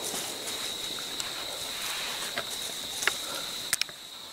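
Outdoor ambience dominated by a steady, high-pitched insect drone, with a few sharp clicks about two and a half seconds in, at three seconds and near the end.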